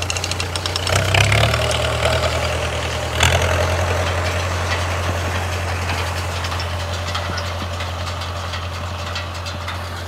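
Small old tractor's engine running steadily as it pulls a wheel hay rake through cut hay, slowly getting quieter as it moves off. There is one sharp knock a little after three seconds in.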